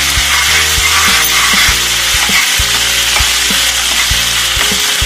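Onion and spice masala sizzling in hot oil in a kadhai while a steel spatula stirs and scrapes it around the pan. Background music with a steady low beat runs underneath.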